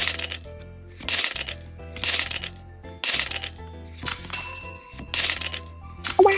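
Pokémon cards being slid off the stack one after another, a short swish about once a second, over light background music.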